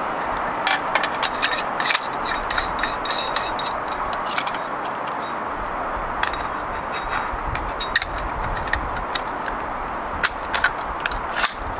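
Light clicks and rattles from handling a gas blowback airsoft submachine gun, coming in a few short clusters over a steady background hiss.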